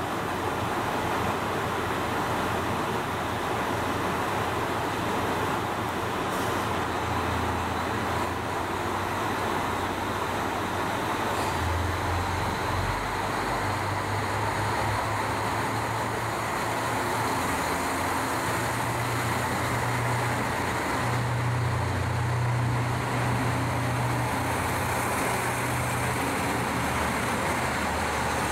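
Diesel engines of a JR Hokkaido KiHa 54 and KiHa 40 railcar set idling at the platform: a steady engine hum whose low drone shifts and strengthens in the second half.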